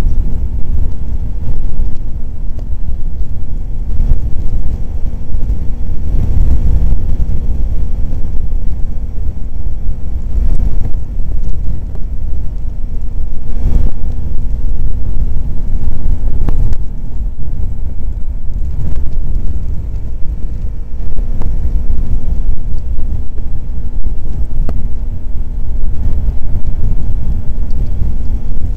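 Kawasaki Ninja 250's parallel-twin engine at a steady cruise, mixed with heavy low wind rumble on the bike-mounted microphone.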